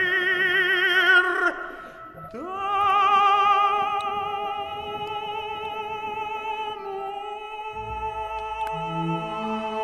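Background music: an operatic singing voice holding long notes with a wide vibrato. The first note breaks off about a second and a half in, a new one slides up into place and is held, and lower sustained notes join near the end.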